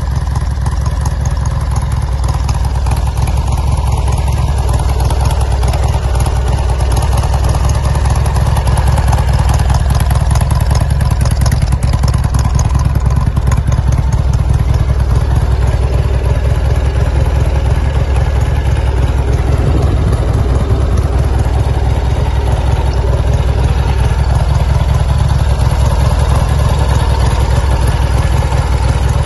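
1989 Harley-Davidson Softail Heritage Classic's 1340cc Evolution V-twin engine idling steadily.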